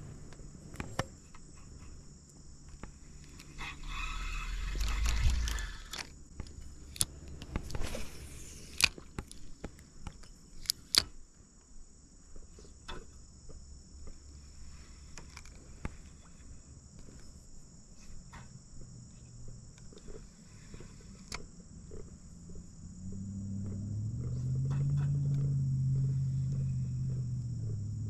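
Steady high-pitched drone of summer insects, broken by scattered sharp clicks. From about 23 seconds in a motor vehicle's engine hum swells up and keeps going.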